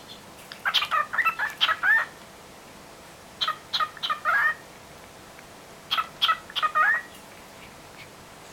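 Cockatiel vocalizing in three short phrases, each a quick run of chirps ending in a rising whistle, roughly every two and a half seconds.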